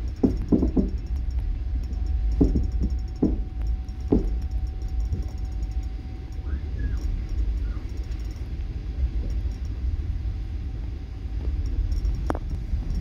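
Train rumbling low and steadily, with a few clunks in the first four seconds, another near the end, and a faint steady whine.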